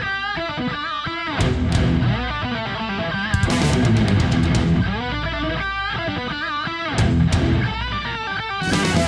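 Hard rock music with distorted electric guitar riffs.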